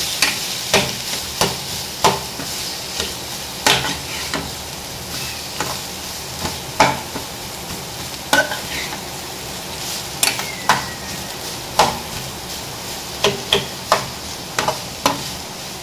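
Food sizzling in hot oil in a pan while it is stirred, with sharp clicks and knocks of the stirring spoon against the pan at irregular intervals and a brief squeak of a scrape a little after ten seconds.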